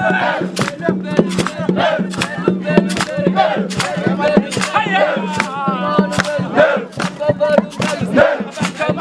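A crowd of voices chanting and singing together with shouts, over sharp, rhythmic beats about two or three a second.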